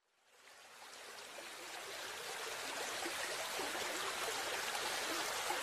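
Running water, a steady rushing that fades in from silence over the first two seconds or so.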